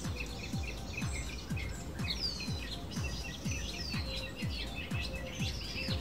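Background music with a steady low beat, about two beats a second, mixed with birds chirping and twittering in many short, high notes, some sweeping downward.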